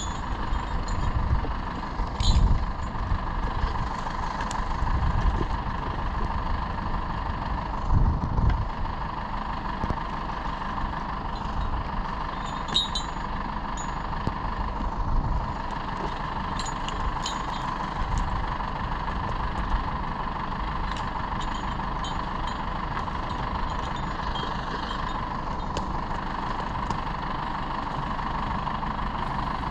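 Forestry tractor engine running steadily, with a steady mid-pitched whine over a low rumble, and a few louder low thumps near the start and about eight seconds in.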